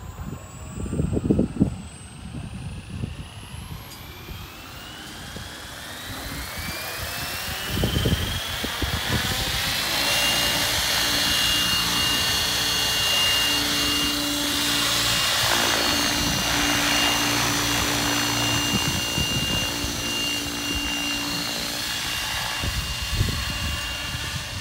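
Electric Mikado LOGO 700 RC helicopter spooling up: a whine that rises in pitch for several seconds, then holds steady once the rotor is at speed. Wind buffets the microphone in gusts, loudest near the start and around eight seconds in.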